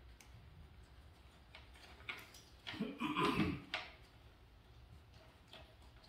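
Light clicks and small knocks of metal parts being handled while trying to fit a part at the rear suspension of an electric bike, with a louder noise about three seconds in.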